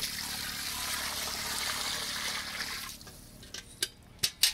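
Water poured from a metal bucket into a large cooking pot of chicken pieces, a steady rush that stops about three seconds in. A few sharp knocks follow near the end.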